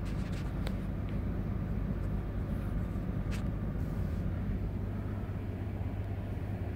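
Steady low drone of a car's engine and cabin, heard from inside the vehicle as it idles or creeps along, with a faint click or two.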